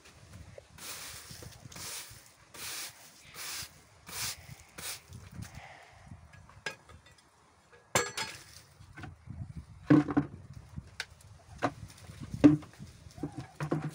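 Broom sweeping a floor in short, regular strokes, about one a second, followed by a few sharp knocks, the loudest two in the second half.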